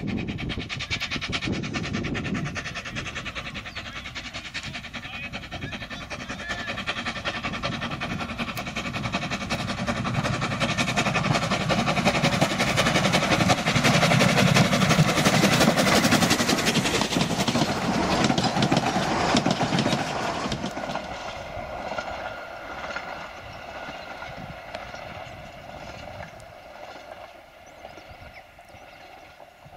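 Isle of Man Railway narrow-gauge steam tank locomotive No. 8 Fenella running by with its train of coaches. The sound grows louder as it approaches, is loudest a little past halfway through, and fades as the train draws away.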